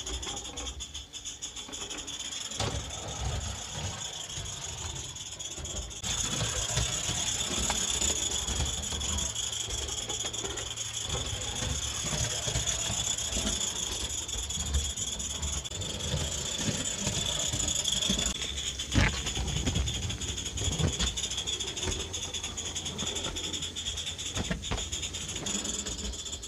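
Spirit-fired live-steam model locomotive running round a small circle of lumpy, uneven track: a steady hiss of steam, with the rattle and occasional sharp clicks of its wheels over the rails and joints. The hiss grows louder about six seconds in.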